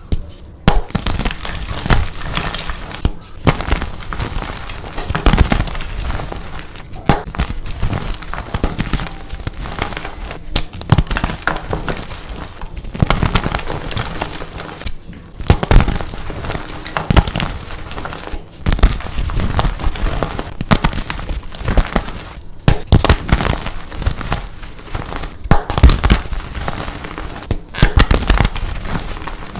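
Dyed gym chalk pumpkin shapes being crushed and crumbled, a dense crunching and crackling with frequent sharp, loud crunches.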